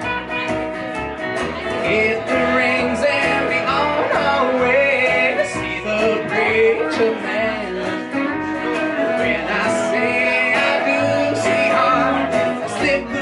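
Live country band playing a song, with electric guitar, acoustic guitar and upright bass, and a voice singing over them.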